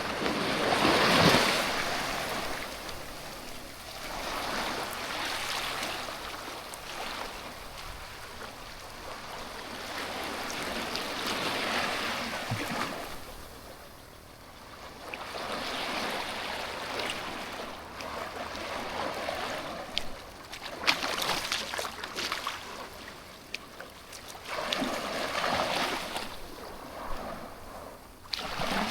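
Sea waves breaking and washing up a sandy beach, in swells that rise and fade every few seconds. The loudest wave comes about a second in.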